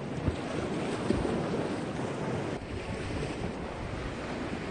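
Sea surf washing against a rocky shore, mixed with wind buffeting the microphone, with a couple of brief knocks in the first second or so.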